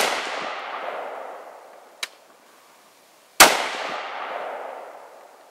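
AR-15 carbine with a 14.5-inch barrel firing .223 Remington steel-case rounds. One shot comes right at the start and a second about three and a half seconds in, each followed by a long echo that fades over about two seconds. A short, sharp click comes about two seconds in.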